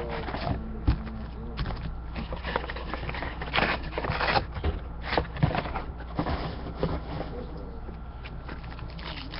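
Trading cards being handled and flipped through: soft rustles and light clicks, with faint voices in the background.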